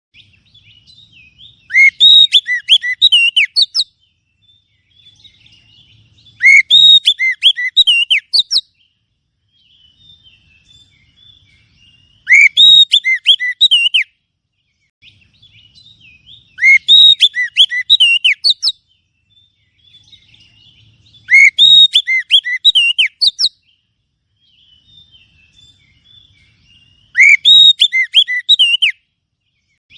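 Oriental magpie-robin (kacer) song used as a lure call. Six loud, high, whistled phrases of about two seconds each come every four to five seconds, with faint, quieter chattering in between.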